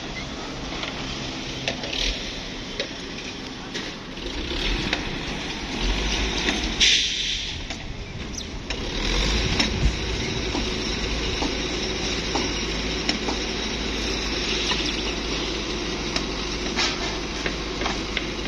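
Steady low engine rumble with scattered light clicks and knocks. The rumble grows louder about four seconds in and again around nine seconds.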